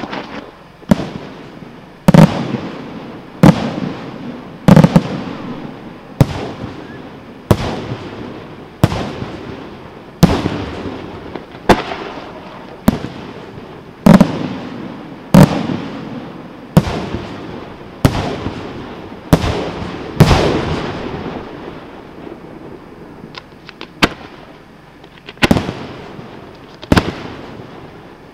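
Aerial firework shells bursting one after another at a steady pace, about one every second and a third. Each is a sharp bang that trails off in a long rumbling echo.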